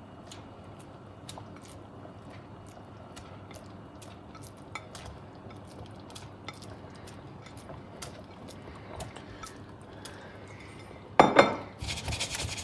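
Meatballs dropped one by one into a saucepan of boiling tomato sauce, with faint scattered ticks and pops from the bubbling sauce. Near the end comes a loud knock, then the stainless steel saucepan is shaken, scraping on the glass cooktop.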